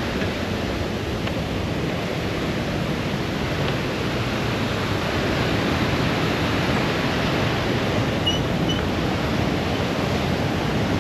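Mountain torrent rushing: a steady roar of fast white water.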